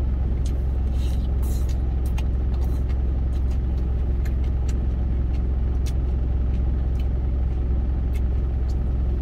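Steady low drone of a truck's engine idling, heard inside the cab, with scattered faint clicks and smacks of chopsticks and chewing.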